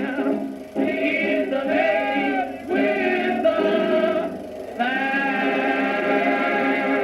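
1930s jazz film soundtrack: band music with singing and long held sung notes, played back from a Super 8mm sound print with thin, phonograph-like sound.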